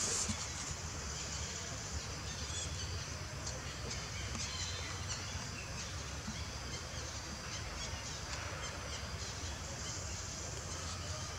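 Outdoor ambience: a steady high insect drone with a few short bird chirps scattered through it, over a low steady hum.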